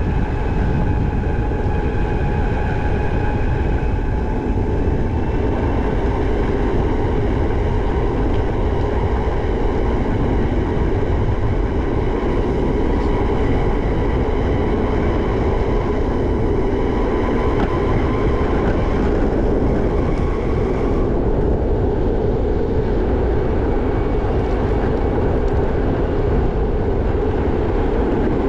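Steady rumble of wind on a helmet-mounted action camera and the wheels of a Backfire Zealot electric skateboard rolling on a paved trail. A faint high whine runs on top and fades about three-quarters of the way through.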